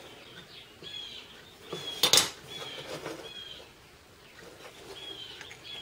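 Small metal parts of a motorcycle vacuum petcock being handled and set down on a workbench, with one sharp metal clink about two seconds in. A bird chirps repeatedly in the background.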